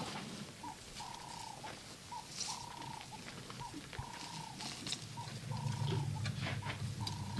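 An animal calling over and over in short, even-pitched notes, alternating longer and shorter ones, about one to two a second. A low rumble rises under it from about five and a half seconds in.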